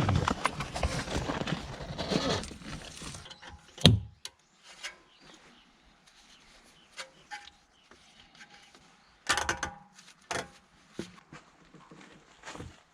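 Hand work on a car's front brake: a few seconds of scraping and rubbing, then scattered sharp clicks and knocks of tools and parts, the loudest about four seconds in and a short cluster near the middle.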